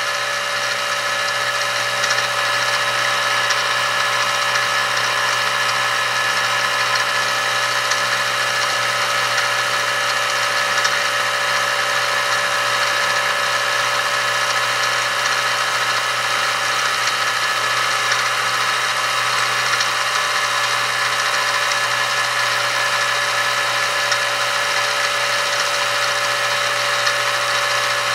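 X2 mini-mill spindle running steadily at about 1000 RPM in gear, its motor and gear drive giving a constant whine made of several steady tones.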